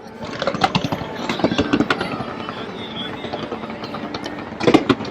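Fireworks popping and crackling in quick, irregular succession, with a louder cluster of bangs near the end.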